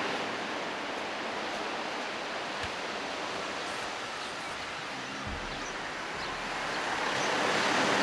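Sea surf washing on the shore: a steady rushing wash that grows a little louder near the end.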